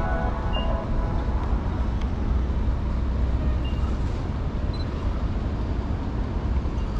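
Road traffic on a city street: a steady low rumble of passing cars. Background music fades out in the first second.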